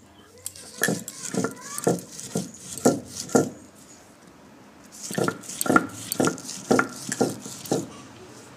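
Stone pestle worked back and forth over a flat grinding stone (sil-nora), crushing khesari dal into paste: rough scraping strokes about two a second, in two runs with a short pause between them.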